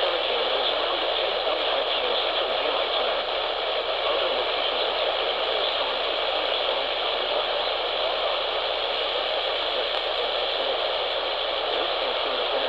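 Steady hiss of AM radio static from a receiver, with no speech or tones on the channel.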